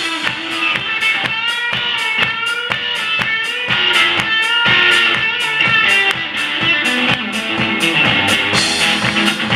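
Live rock duo: an electric guitar playing a lead line whose notes bend up and down in pitch, over a drum kit hitting several times a second.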